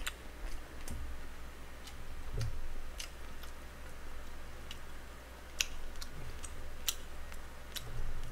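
Close-miked eating sounds: irregular sharp clicks and mouth smacks of chewing, with metal chopsticks working in a pot of kimchi stew.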